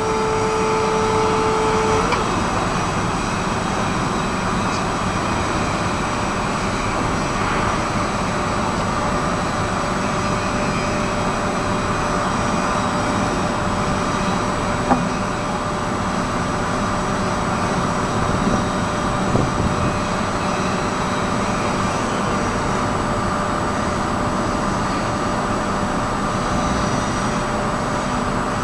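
Electric forklift's motors and hydraulics running: a steady whine and hiss while the mast lowers the forks and the truck manoeuvres. A steady tone stops about two seconds in, and there is a single sharp click about halfway through.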